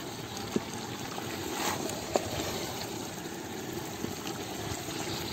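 Wooden spatula stirring wet chicken masala in a large aluminium pot, with a few light knocks against the pot over a steady background hiss.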